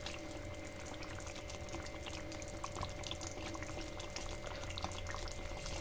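Fish curry gravy bubbling at a boil in a pan, a faint irregular popping and crackling over a steady faint hum.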